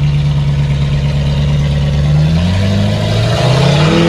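Four-wheel-drive truck engine running under steady throttle, then revving up, rising in pitch from about halfway through.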